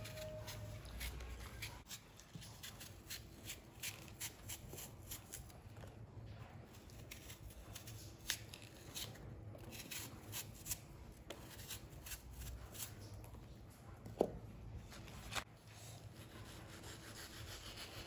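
A kitchen knife peeling the skin off an apple by hand: a run of small, quick scrapes and clicks as the blade cuts along the skin. A brief squeak stands out about fourteen seconds in.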